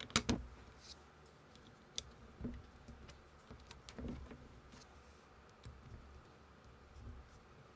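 Plastic Lego-compatible bricks clicking as they are handled and pressed together. There is a burst of sharp clicks at the start, then a few scattered single clicks.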